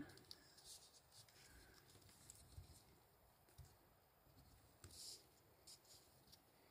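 Near silence, with faint ticks and a brief soft scratch about five seconds in from a pen marking points on paper.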